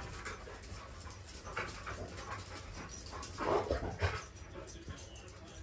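Two dogs play-wrestling, making soft dog noises in a few short, faint bursts, the loudest about three and a half to four seconds in.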